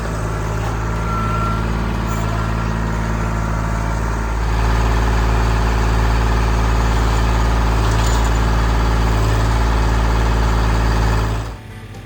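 An engine running steadily, getting louder about four and a half seconds in and cutting off abruptly near the end.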